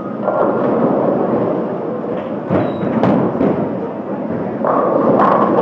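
Bowling alley din of rolling balls and crashing pins, with a few sharp knocks about two and a half to three and a half seconds in.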